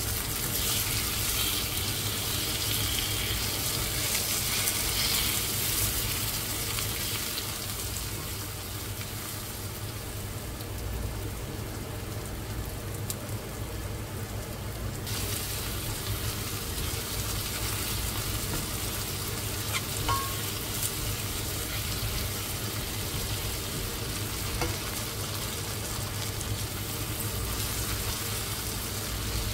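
Food sizzling steadily in hot oil in a pan, with a few light knocks as it is stirred.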